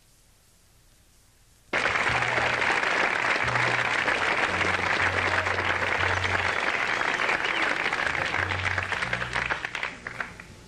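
Concert audience applauding, starting abruptly about two seconds in, with a few low bass notes sounding underneath, then dying away near the end.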